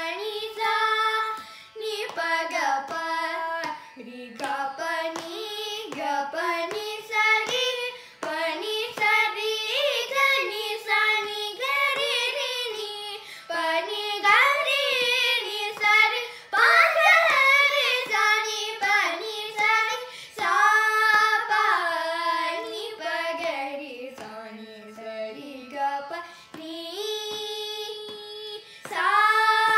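Two children, a girl and a boy, singing a Carnatic varnam in raga Hamsadhwani together, their voices sliding and bending between notes and holding some notes steadily.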